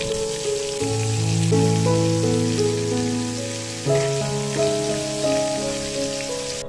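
Hot oil sizzling steadily as coated loitta (Bombay duck) fish pieces deep-fry in a black iron wok, with soft background music of held, slowly changing notes.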